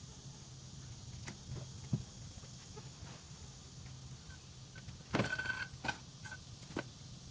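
Light knocks and a short clatter of junk being handled, the clatter with a brief squeak a little past the middle, over a steady low hum.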